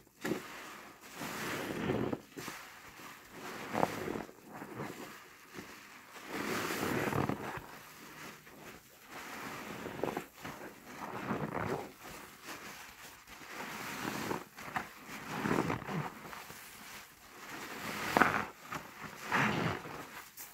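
Soapy HDX sponges being squeezed and squished in thick suds by gloved hands: wet squelching and foam crackling that swells and fades every second or two.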